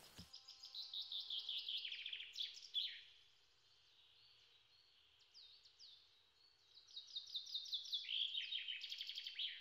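A songbird singing: quick runs of repeated high notes that sweep downward, one phrase in the first three seconds ending on a lower note, and another from about seven seconds in, with a quieter stretch between.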